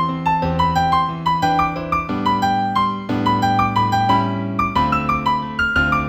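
Solo piano piece in C major at a moderate tempo: a steady stream of single melody notes, several a second, over lower held bass notes.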